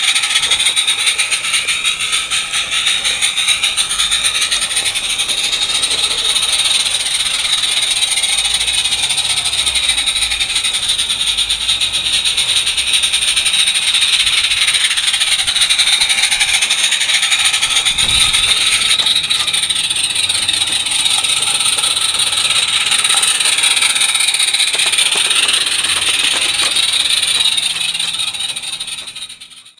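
Live-steam 16mm-scale garden railway locomotive running on 32mm gauge track: a steady hiss of steam with the rattle of the loco and wagon over the rails. It fades out near the end.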